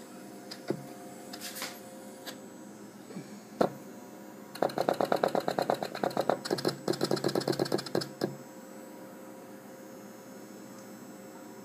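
Pneumatics of a Seeburg Model K player-piano stack working one after another and clacking. A few single clacks come first, then about four seconds of rapid clacking, several a second, in two runs with a short break. A steady hum runs underneath.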